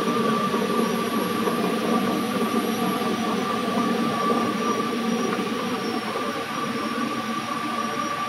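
Automatic wire rope cutting machine running: a steady mechanical hum with a constant high whine over it.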